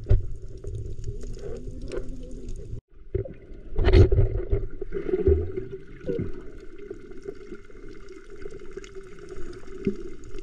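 Water gurgling and sloshing over a low rumble, with a louder splash about 4 seconds in.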